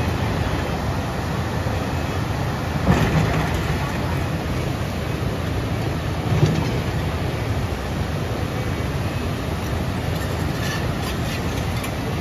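Caterpillar tracked excavator running as it works a stony riverbank, mixed with the steady rush of a fast river. There are two brief louder thumps, about three and six and a half seconds in.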